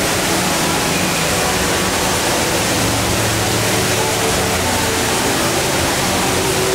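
The HSBC Rain Vortex, a tall indoor waterfall, pouring in a steady, loud rush of falling water.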